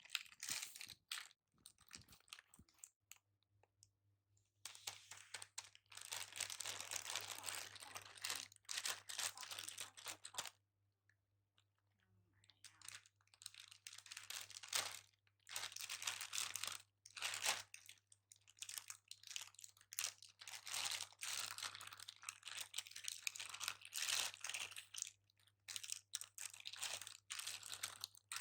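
Plastic jelly-cup packaging crinkling and crackling in irregular bursts as it is handled and peeled open, with two short pauses.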